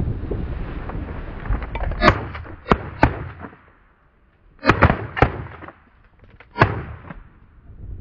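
Shotguns from several hunters firing at geese over decoys: about six shots in quick succession, in three short clusters, the last one near the end.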